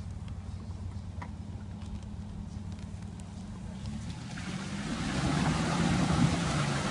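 SUV engine running at low revs as it drives into a deep muddy, water-filled rut. About four and a half seconds in, the engine revs up and gets louder, with a rushing splash of water and mud churned by the wheels.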